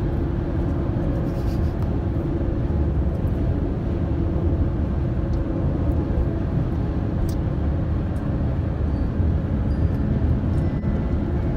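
A car cruising on a highway, heard from inside the cabin: steady tyre and engine noise with a constant low hum.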